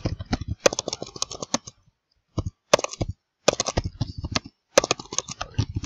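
Computer keyboard typing: quick runs of keystrokes broken by short pauses.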